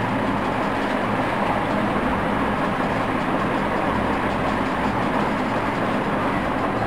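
Steady background noise: a continuous hiss and rumble with a faint low hum, with no distinct events.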